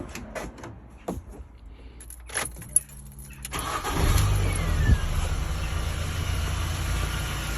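A few clicks and knocks, then a car engine is cranked and starts a little past halfway through, settling into a steady idle.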